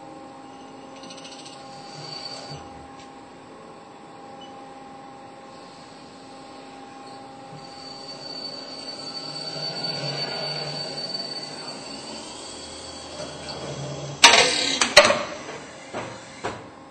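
Haas SL-20 CNC lathe running, a steady machine hum with a few constant whining tones that swells and fades in the middle. Two loud sharp metallic bangs come about a second apart, followed by a few smaller knocks.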